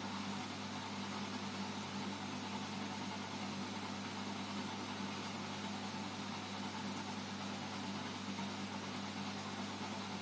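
Reef aquarium equipment running: a steady low hum with an even hiss over it, unchanging throughout.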